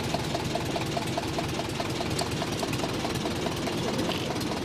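Small old tractor engine running at low revs: a steady low chugging with a regular light tick about five times a second.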